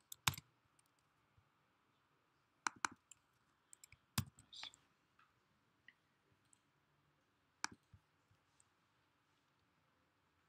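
Sparse, sharp clicks from someone working a computer: two right at the start, a pair about three seconds in, one around four seconds and one near eight seconds, with a very quiet background between them.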